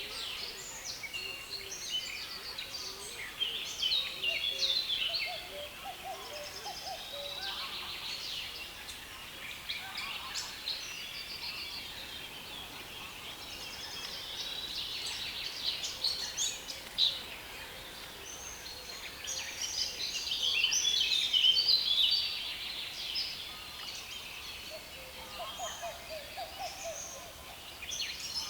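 Dense chorus of songbirds in a reedbed, many overlapping chattering and twittering songs without a break, swelling louder about two-thirds of the way through.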